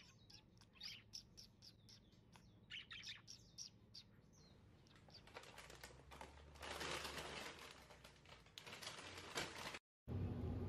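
Pet budgerigar giving a rapid string of short, sharp chirps, its angry voice. About five seconds in the chirps give way to a few seconds of louder hissing noise, which cuts off briefly near the end.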